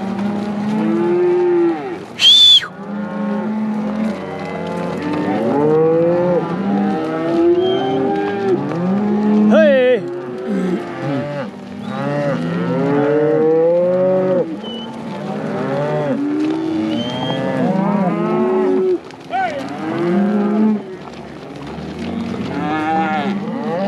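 A herd of cattle mooing continuously, many cows calling over one another as they are driven. About two seconds in, a short, loud, high whistle rises above the herd.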